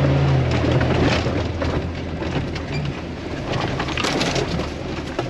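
Off-road 4x4's engine running steadily, with stones and gravel crunching and cracking under the tyres.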